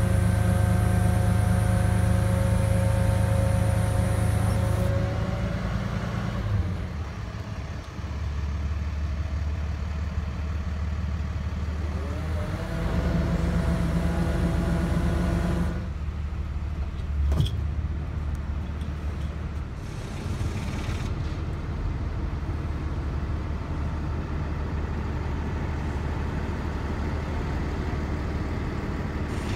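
Bucket truck running and powering its aerial boom hydraulics: a steady hum with whining tones that shift pitch several times as the boom is worked, dropping about five seconds in and again about sixteen seconds in, with a brief rising whine shortly before the second drop. A single sharp click sounds a little past the middle.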